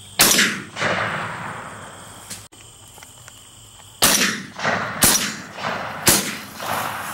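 Shotgun shots: one just after the start, then after a pause three more about a second apart, each trailing off in an echo. Crickets chirp steadily underneath.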